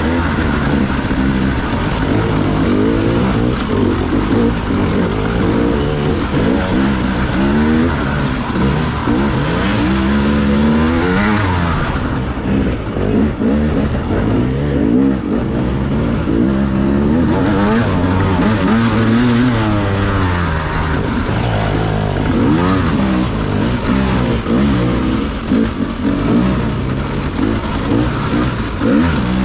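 Engine of a new vehicle being driven during its break-in. Its pitch rises and falls again and again as the throttle and speed change, over steady rumbling road and wind noise.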